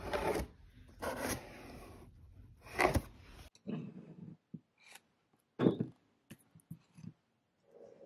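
Cardboard pizza box being handled, with several rough scraping, rustling sounds. Then a few short knocks and clicks as pizza slices are picked up and set down on a plate, the loudest knock a little past the middle.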